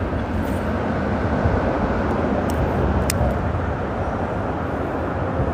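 Steady rumble of freeway traffic crossing the bridge overhead, even in level, with a few faint high clicks.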